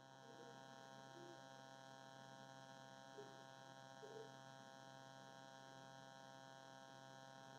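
Near silence: a faint, steady electrical hum with no other clear sound.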